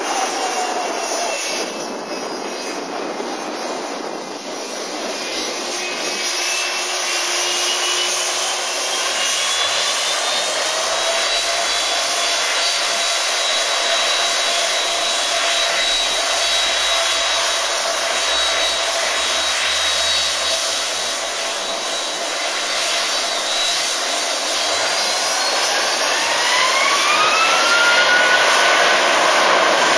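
Boeing 757-256's twin Rolls-Royce RB211 turbofans running with a steady whine over a rushing roar. Near the end the whine rises in pitch and the sound grows louder as the engines spool up.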